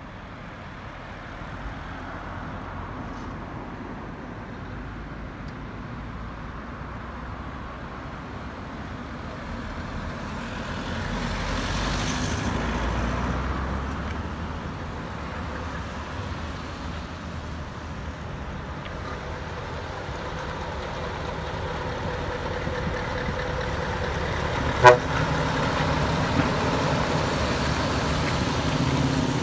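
Road traffic at a roundabout: a car drives past about twelve seconds in, then a heavy-haulage truck pulling a low-loader comes by, its diesel rumble growing louder toward the end. A single short, sharp blip stands out shortly before the truck passes closest.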